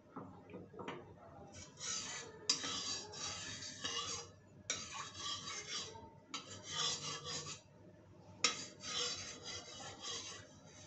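Flat steel spatula scraping across the bottom of a kadhai through a thin layer of oil, in about five rasping strokes with short pauses between them, with a sharp metal click near the end.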